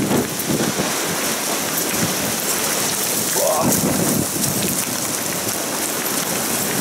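Heavy thunderstorm rain pouring down on a paved street, a dense steady hiss, with a few brief low rumbles mixed in.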